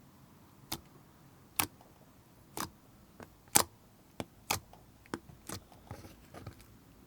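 Slime being pressed and poked, giving off a series of sharp popping clicks, about one a second at first, then quicker and closer together toward the end.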